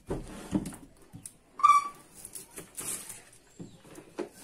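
Kitchen knife slicing through a red onion and knocking on a wooden cutting board, in a few separate cuts. About a second and a half in, a single short, high-pitched call cuts through, the loudest sound.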